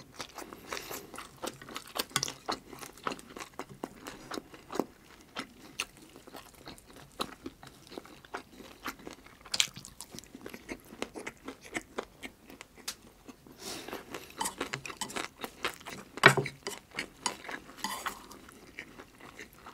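Close-miked chewing and crunching of gimbap topped with stir-fried anchovies, wet mouth clicks throughout, with chopsticks tapping on the dishes and one louder mouth sound near the end.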